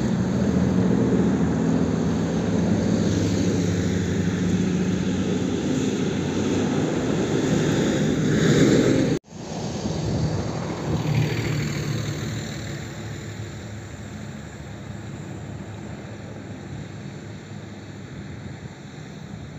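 Jet airliner engines. A loud jet engine noise with steady low tones is cut off abruptly by an edit about nine seconds in. It is followed by the quieter hum and whine of a LATAM Airbus A320-family jet's engines as it rolls slowly along the runway, fading gradually.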